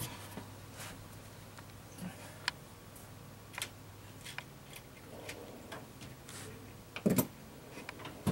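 Irregular light clicks and taps of hand work on engine-bay parts such as hoses, plastic clips and connectors. A louder double knock comes about seven seconds in, over a faint steady low hum.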